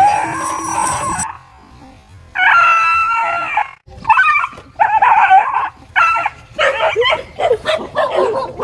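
A dog giving long, high, drawn-out cries and then barking in a quick run, faster toward the end, as it fights a stuffed toy tiger.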